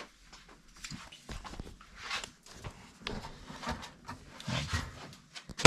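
A man blowing hard into a washing machine's pressure-switch hose in a series of short breathy puffs, testing whether air passes; the hose looks pretty clogged, so it barely blows through.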